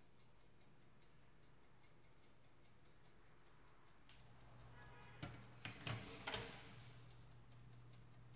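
Quiet kitchen with faint, rapid, even ticking and a low hum; about five seconds in, a few knocks and clatters as a baking tray of tarts is set into the oven.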